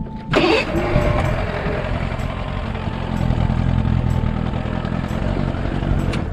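A small fishing boat's motor running with a steady low hum, after a brief louder burst near the start.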